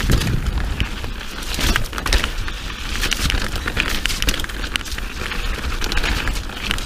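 Mountain bike riding down a wet dirt trail: the tyres crunch over the ground and the bike rattles and clatters in a dense, irregular run of small clicks over a steady low rumble.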